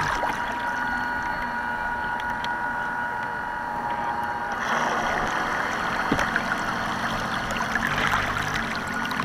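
Motor of a radio-controlled model boat running with a steady whine, giving way after about five seconds to the rush and splash of water.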